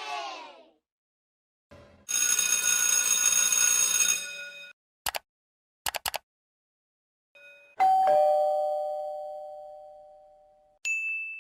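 A string of sound effects: a bright ringing chime for about two and a half seconds, a few sharp clicks, then a two-tone doorbell ding-dong, high then lower, ringing out for about three seconds, and a short high ding near the end.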